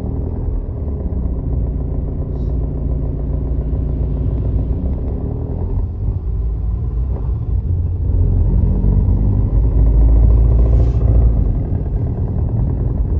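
MINI Clubman diesel engine running steadily, getting louder about two thirds of the way through.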